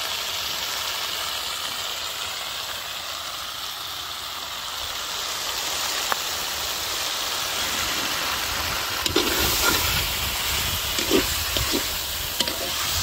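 Chicken pieces sizzling in hot oil and spice paste in a large metal wok, a steady hiss. From about nine seconds in, a metal spatula scrapes and knocks against the pan a few times as the chicken is stirred.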